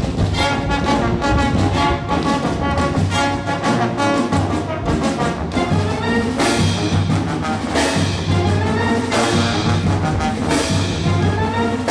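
Brass band with drums playing, with sharp percussion hits repeating about every second and a half in the second half. Strong wind roars on the microphone underneath.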